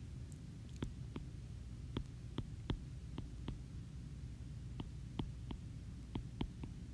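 Stylus tip clicking against a tablet's glass screen during handwriting: a dozen or so short, sharp, irregularly spaced taps over a steady low hum.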